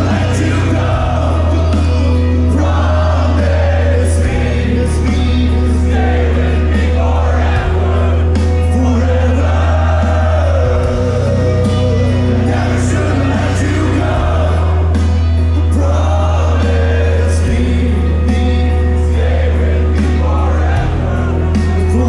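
Metalcore band playing live and loud: heavy bass notes shifting every second or two under the full band, with sung vocals over the top and crowd noise mixed in.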